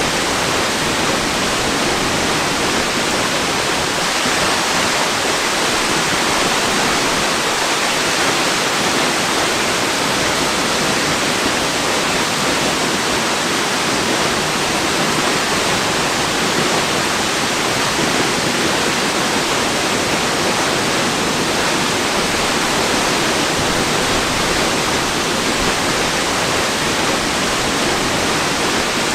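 Waterfall: falling water making a steady, even rushing noise that does not change.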